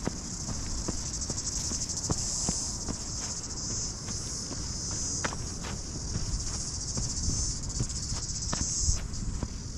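A steady, high-pitched chorus of insects chirring, easing slightly near the end. Underneath, a runner's footfalls on a dirt trail tap irregularly over a low rumble.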